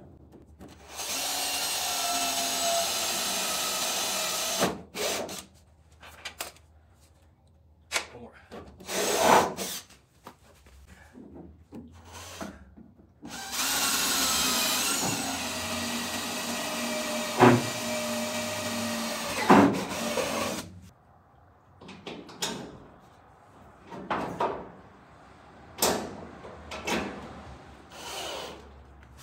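Cordless drill boring holes through the sheet-metal rear sill of a pickup. The motor whines steadily in two long runs, with a few sharp knocks, then gives several short bursts near the end.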